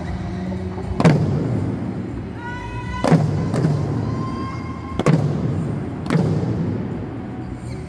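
Okinawan eisa drums, the small handheld paranku among them, struck with sticks in unison about five times at an uneven pace. Each hit echoes through a large sports hall, over recorded backing music that holds a couple of pitched notes.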